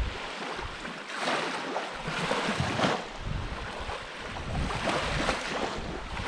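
Small waves washing up on the sand at the water's edge, swelling and easing several times, with wind rumbling on the microphone.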